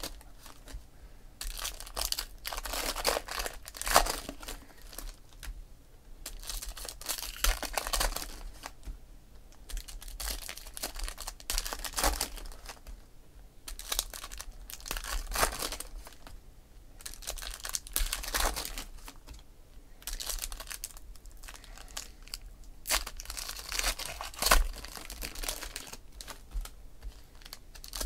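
Foil trading-card pack wrappers crinkling and tearing as packs are ripped open by hand, in short bursts every second or two.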